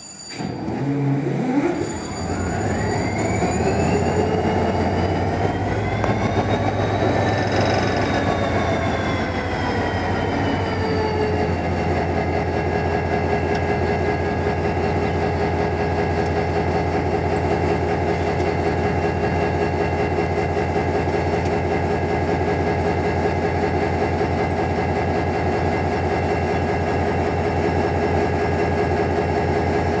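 GT22 diesel-electric locomotive's engine being started: it catches about half a second in, its pitch climbs for several seconds, then falls back and settles into a steady idle about twelve seconds in.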